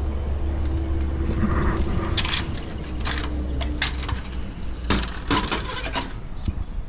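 A handful of sharp plastic clicks, knocks and rattles as the removed plastic grille and parts are handled, over a low steady hum that stops about four seconds in.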